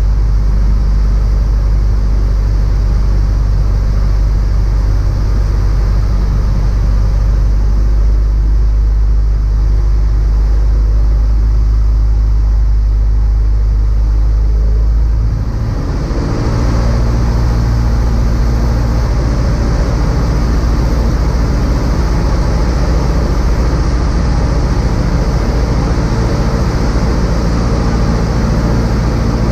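Small single-engine light aircraft's engine and propeller running steadily, heard from inside the cockpit along with wind noise during a descending approach. About halfway through, the engine note changes after a brief dip in loudness, a sign of a throttle change.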